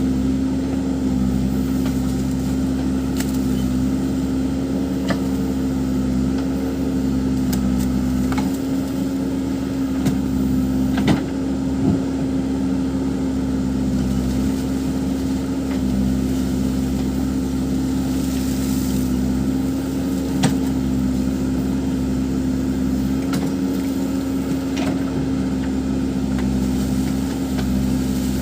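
Backhoe loader's diesel engine running steadily at a constant speed, with a few sharp knocks and clanks scattered through, the biggest about eleven seconds in.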